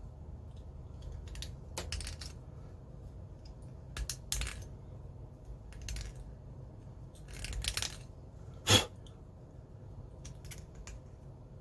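Small hard plastic parts being handled and worked: a series of short scrapes and light clicks, with one sharp click about three-quarters of the way through, as a glued-in power plug is test-fitted and excess glue trimmed from around its edges.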